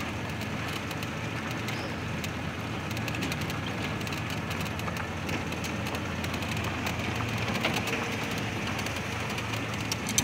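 Car driving slowly on a dirt track, its engine running steadily, heard from inside the cabin, with scattered light clicks.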